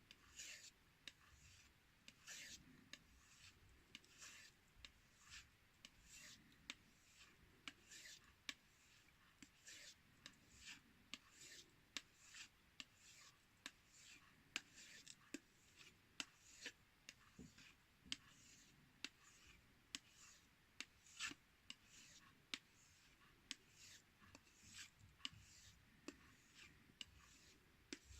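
Knife blade slid lightly along a compound-loaded strop, alternating sides from tip to heel. A steady run of faint, short strokes, a little more than one a second: stropping away the fine burr left by the whetstone.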